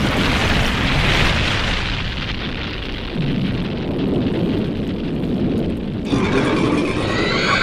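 Rumbling aftermath of a big explosion sound effect, a dense low noise that slowly eases off. About six seconds in, a giant monster's screeching roar begins.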